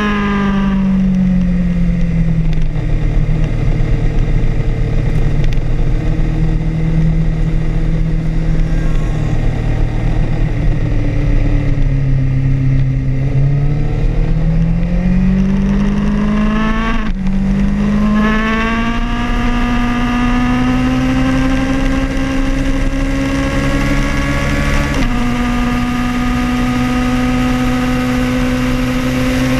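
Sport motorcycle engine heard from the bike itself on a racetrack, over steady wind and road noise. The revs fall steeply at the start as it slows, stay low through a long stretch, then climb again under acceleration, broken by a sudden gear change about halfway through and another step a few seconds before the end.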